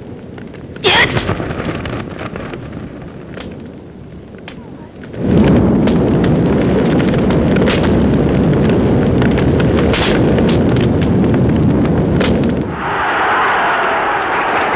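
Cartoon sound effects: a sharp hit about a second in, then a sudden, loud explosion giving way to a sustained low rumbling roar of fire from about five seconds in. Near the end the rumble gives way to a higher, steady rushing noise.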